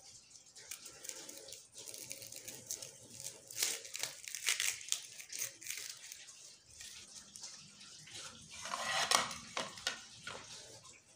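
Red onion being peeled with a kitchen knife: dry, papery skin crackling and tearing, with the blade scraping. Louder crackles come about a third of the way in and again near the end.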